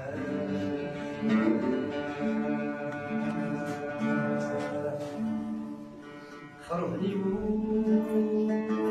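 Music: a song with plucked-string accompaniment and a held melody line. It drops back briefly and comes in fuller about seven seconds in.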